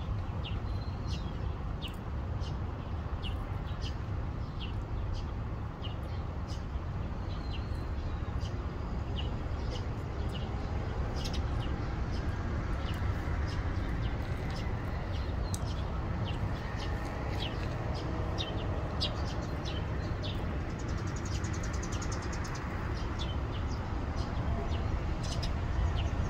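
Small birds chirping, short sharp calls repeated every second or so, over a steady low rumble of wind or distant traffic.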